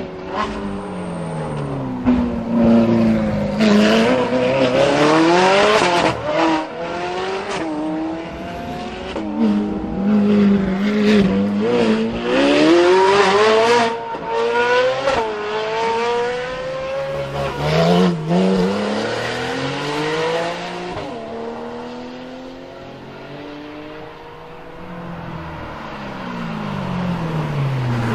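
Supercars accelerating hard one after another out of a hairpin: a Lamborghini Aventador's V12 and then a Ferrari 458's V8 rev up through the gears. The engine notes climb and drop repeatedly, with sharp cracks between the climbs. The sound eases off a little past two-thirds of the way through, then another car's engine rises again near the end.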